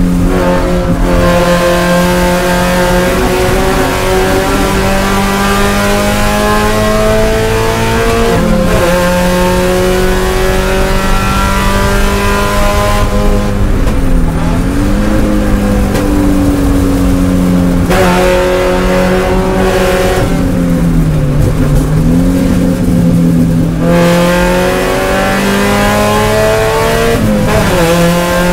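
Spec Miata race car's four-cylinder engine heard from inside the cockpit, pulling hard at high revs. Its note climbs steadily under throttle and drops sharply several times as the driver shifts and lifts for corners.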